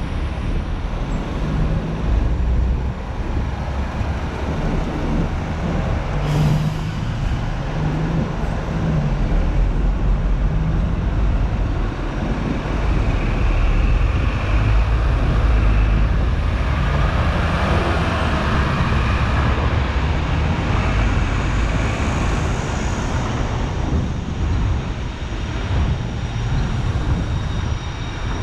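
Hong Kong double-decker electric tram running along its street tracks: a steady low rumble of wheels and motor, with road traffic around it. There is a sharp click about six seconds in, and a faint high whine from about halfway that fades out before the end.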